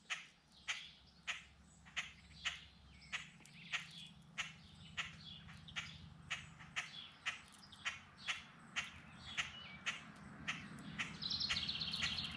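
Blackbirds giving sharp alarm chips, repeating evenly about one and a half times a second, agitated by a cat nearby; near the end one gives a short buzzy trill.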